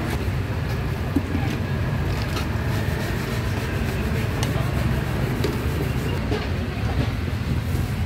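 Busy street-market background noise: a steady low rumble, the kind traffic and a crowd make, with a few faint clicks scattered through it.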